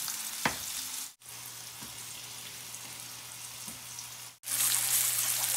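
Flour-dredged calf liver sizzling in hot olive oil in a skillet: a steady frying hiss, with one sharp click about half a second in. The sizzle is louder in the last second or so.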